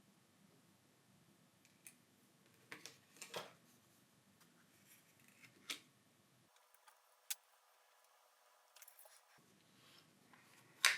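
Faint, scattered clicks and small taps from hand tools on plastic and metal smartphone parts, a few seconds apart.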